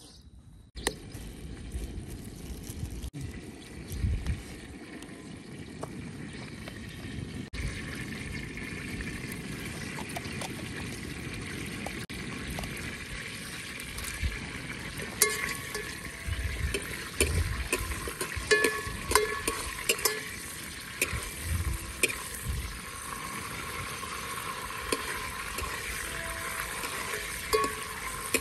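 Metal ladle stirring liquid in a steel cooking pot over a wood fire, against a steady hiss. From about halfway through, the ladle clinks and scrapes against the pot repeatedly, some strikes ringing briefly.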